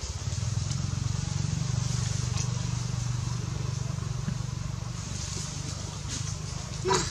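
Engine running steadily with a low, pulsing hum. Near the end, one short shrill cry from a baby macaque.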